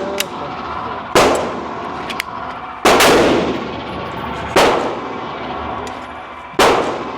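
Four single gunshots, fired one at a time about one and a half to two seconds apart, each with a long echoing tail.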